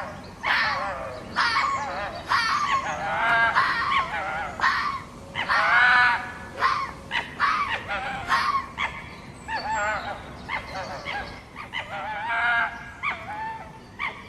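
Fox calling: a long run of short, high yelping barks, one after another, each with a wavering pitch.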